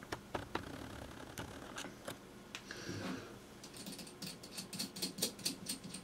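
Faint clicks and light handling noise of hands turning a small brushless drone motor and its prop adapter. Scattered clicks at first, then a quicker run of small clicks in the second half.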